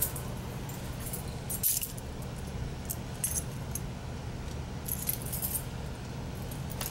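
Small metal pieces jingling in several short, light bursts, the loudest about a second and a half in, over a steady low hum.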